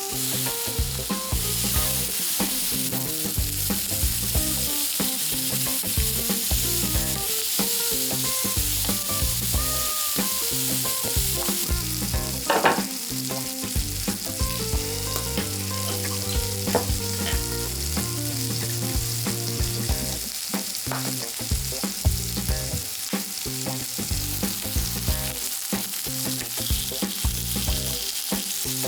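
Pork intestines (makchang) sizzling and crackling in fat on a hot grill pan, with a steady hiss and dense popping. There is one sharper knock about twelve seconds in.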